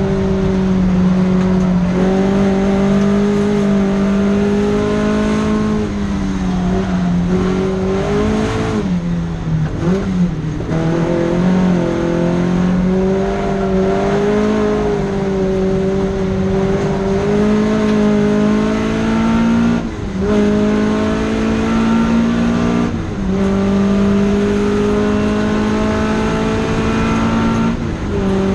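Datsun Fairlady 2000's two-litre inline-four engine driven hard on track, revs climbing through the gears with a short dip at each upshift. About a third of the way in the revs fall and jump about as the car slows, with blipped downshifts, before it pulls hard again.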